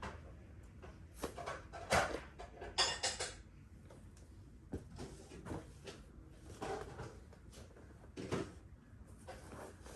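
Clothing rustling and soft knocks of a person doing full prostration bows on the floor, going down onto knees and hands and rising again, in an irregular series of swishes and light thumps.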